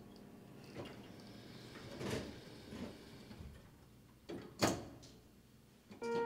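Elevator car knocks and clunks: a few separate knocks, the loudest about four and a half seconds in. Soft music comes in just at the end.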